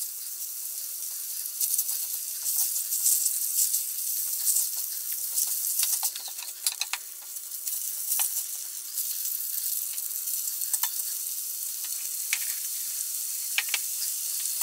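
Marinated pork strips sizzling in hot oil in a ceramic-coated frying pan, a steady hiss, while a silicone spatula stirs and turns them with scattered light scrapes and taps against the pan.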